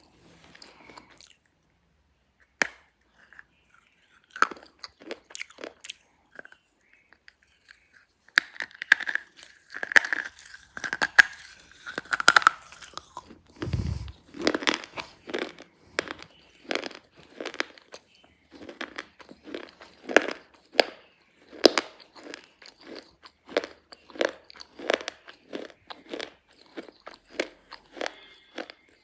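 A1 brand slate pencils being bitten and chewed: a few sharp snaps as pieces are bitten off, then a steady run of crunchy chewing, about two crunches a second, from about halfway through.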